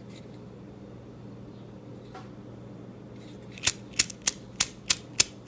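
Zippo lighter parts being handled: a run of six sharp metallic clicks, about three a second, starting a little past halfway.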